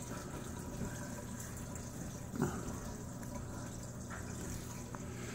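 Water running steadily through a 90-gallon aquarium's sump filtration, with a low steady hum and one brief louder sound about two and a half seconds in.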